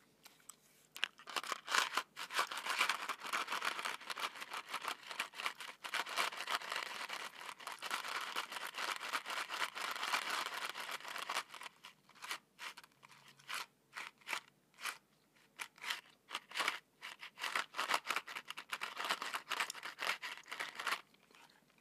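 Small chewing-gum packet handled and crinkled right up against a microphone: about ten seconds of dense crackling, then scattered sharp clicks and crackles.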